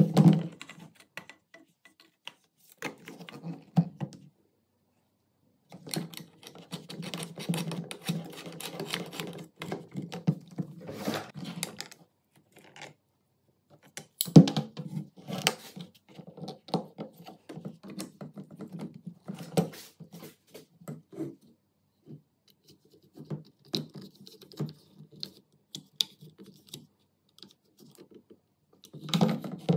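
Clicks, knocks and scrapes of metal and plastic gun parts being handled and fitted together by hand on a workbench, as an MP5-style pistol is reassembled, in irregular clusters with short pauses. A sharp knock about fourteen seconds in is the loudest sound.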